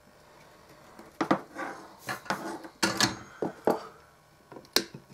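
Irregular small clicks, taps and scrapes of hands and a soldering iron working on a circuit board held in a PCB holder, bending component leads and soldering them, with one sharper click near the end.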